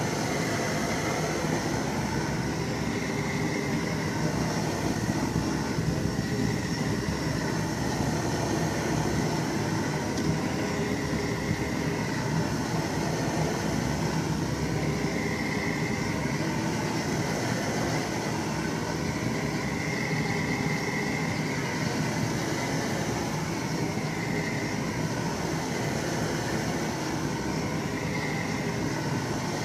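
MTZ-82 tractor engine running steadily during a cold start at −7 °C.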